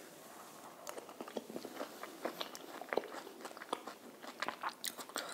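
Close-miked chewing of crispy fried chicken with cream sauce: a quick, irregular run of crunches and wet mouth clicks that starts about a second in.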